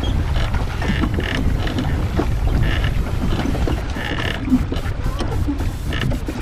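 Wind buffeting the microphone aboard a small rowing boat on choppy lake water. A short high tone recurs about every second and a half.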